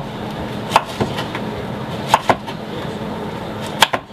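Kitchen knife chopping zucchini on a cutting board: five sharp knocks at uneven spacing, some single and one close pair.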